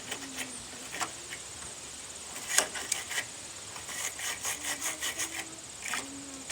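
Battery terminal cleaning brush scraping corrosion off a car battery's cable terminal, in short irregular rasping strokes with a quicker run of them in the second half.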